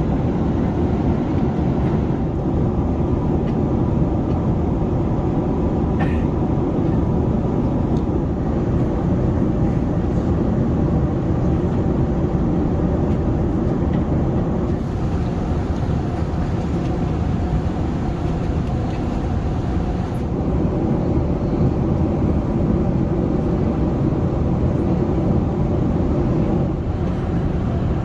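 Steady low rumble of airflow and engines heard inside the cabin of an Emirates Airbus A380 at cruise.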